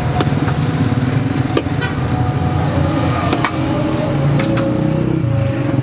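Street traffic close by: a steady low engine hum, with a few sharp clicks.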